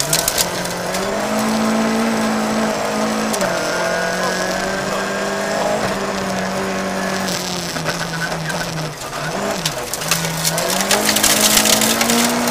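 Volvo 940 rally car's engine heard from inside the cabin, revving hard and changing gear, its pitch climbing, dropping sharply about nine seconds in and climbing again. Under it, the hiss of tyres on gravel and loose stones crackling against the car's underside, thickest near the start and near the end.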